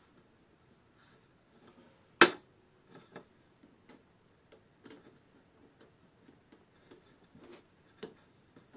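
Small metal clicks and taps of hand tools working on a synchronous clock's movement while it is taken apart, with one sharp click about two seconds in.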